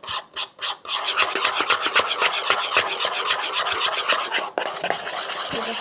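Slime mixture being stirred, a utensil scraping rapidly round the container: a few short strokes at first, then fast continuous scraping with a brief break near the end.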